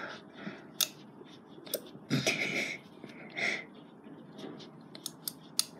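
A plastic bottle of thick white glue being squeezed hard upside down while the glue barely flows: a few sharp plastic clicks, with two short airy puffs between them.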